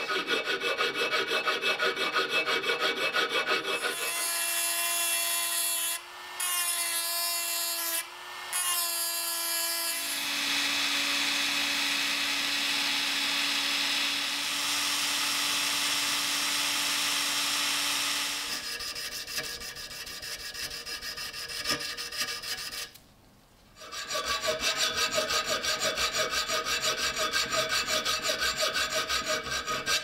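A hand file rasps back and forth on a small steel part in a vise, in quick even strokes. About four seconds in, a small drill takes over with a steady whine that dips briefly twice, then runs on at a slightly lower pitch for several seconds. After a short pause near the end, even back-and-forth strokes resume, here a hacksaw blade cutting the steel.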